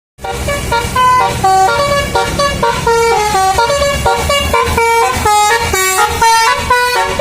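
Indonesian bus 'telolet' basuri musical horn playing a quick melody of short horn notes that step up and down two or three times a second. It starts suddenly, with a low rumble underneath.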